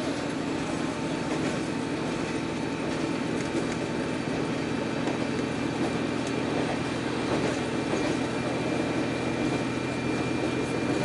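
Diesel railcar running steadily at speed, heard from inside the passenger cabin: an even rumble of engine and wheels on the rails, with a few faint clicks.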